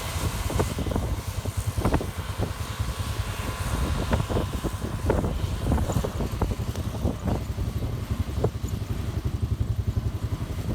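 An engine running steadily with a low, pulsing drone, with scattered short knocks and rattles throughout.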